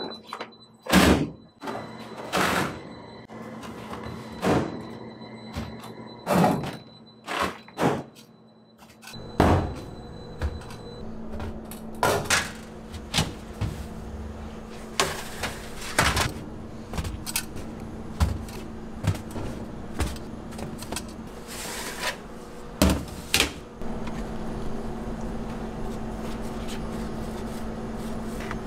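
Metal loaf tins and perforated aluminium baking trays clanking and scraping as they are handled on a steel counter and slid along an oven rack, a dozen or so sharp knocks at uneven intervals. Near the end the knocks stop and a steady hum takes over.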